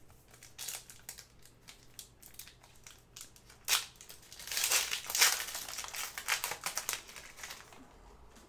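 Crinkling and rustling of trading-card packs and cards being handled, a dense run of sharp crackles loudest from about four to seven seconds in.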